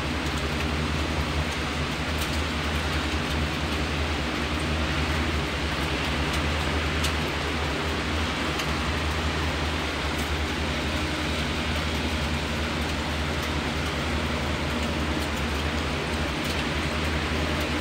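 Steady rushing noise of heavy typhoon rain and wind, with a few faint ticks and a low steady hum underneath.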